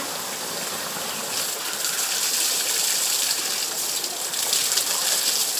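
Spring water gushing from a pipe spout and splashing onto rock and a person bathing under it: a steady rushing splash that gets louder and more broken up about a second and a half in.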